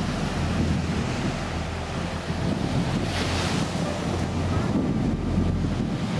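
Sea surf washing against a rocky shore, with wind rumbling on the microphone; a louder wash of surf about three seconds in.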